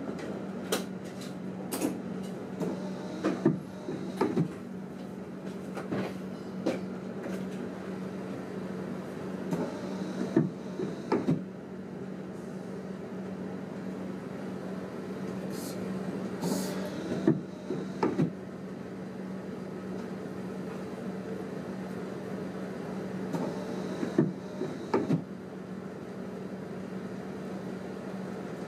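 Running noise inside a train driver's cab: a steady hum with irregular sharp clicks and knocks, several of them in quick pairs.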